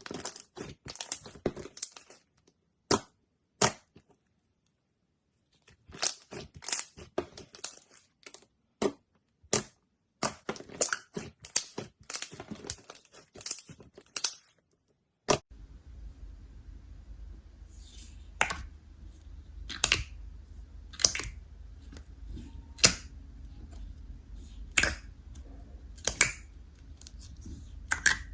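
Slime being squeezed and worked by hand, giving bursts of dense crackling, then separate sharp pops about once a second over a low steady hum.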